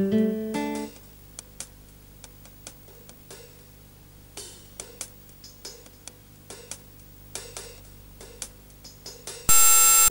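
Background music: plucked guitar-like notes that stop about a second in, then quiet, sparse percussive taps. Near the end a loud buzzing tone cuts in for about half a second.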